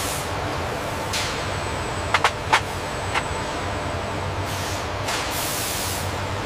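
Steady factory machinery noise with a hiss, broken by a few sharp metal clinks a little after two seconds in and one more a second later, as a machined metal part is handled on a metal tray.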